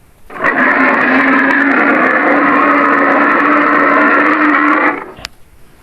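Designed creature sound effect for the Bear-Croc, a fictional prehistoric beast: one long, steady, rough roar of about four and a half seconds that starts abruptly and cuts off sharply.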